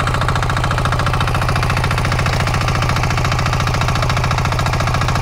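Diesel engine of a Grillo 11500 walk-behind motor hoe running steadily, loud, with a fast, even pulse.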